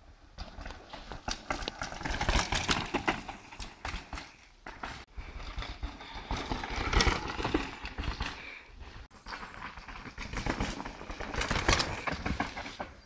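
Mountain bikes riding over a rooty dirt trail: tyres scrabbling on dirt and roots, with the frames and chains rattling over the bumps. The clatter swells and fades three times, loudest about two seconds in, about seven seconds in, and near the end.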